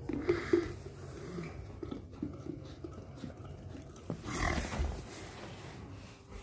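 A dog licking and gnawing at a plastic peanut butter jar, with small wet smacks and clicks, and a louder breathy dog noise about four seconds in.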